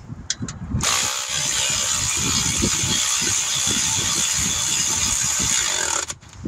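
Cordless electric ratchet running a bolt in. It runs steadily for about five seconds, starting about a second in and stopping suddenly near the end.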